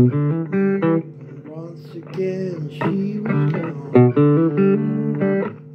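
Blues music: an instrumental guitar break with a run of plucked single notes, some of them bent in pitch, over a steady bass line and no singing.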